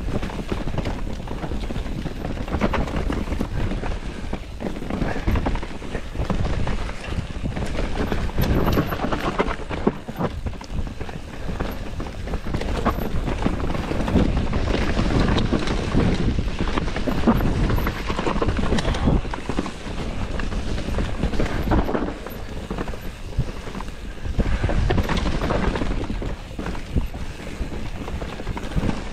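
Mountain bike descending a dirt singletrack: tyres rolling over dirt and roots, with the bike rattling and knocking continuously over the bumps.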